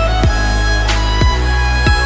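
Background music: sustained tones over a steady beat, with deep kicks that drop in pitch about every two-thirds of a second.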